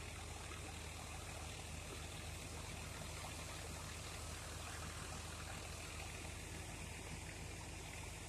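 Tractor-powered drum thresher running, a steady rushing noise with a low hum under it.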